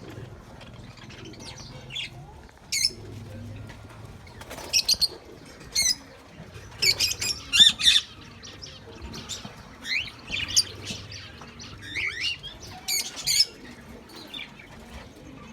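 Budgerigars chirping and squawking: many short, sharp, high-pitched calls coming in irregular clusters, busiest and loudest around the middle.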